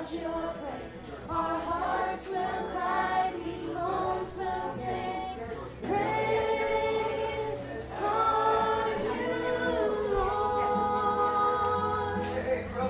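Several voices singing a song together, with long held notes in the second half, over an acoustic guitar.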